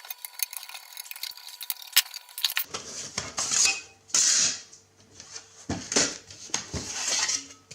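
Screws being taken out of the back of a metal equipment case: a run of small metallic clicks and ticks, then several scraping, clattering bursts as the screws and back panel are handled.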